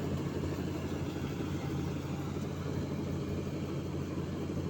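Rice combine harvester's engine running steadily under load, a constant low drone with machinery noise.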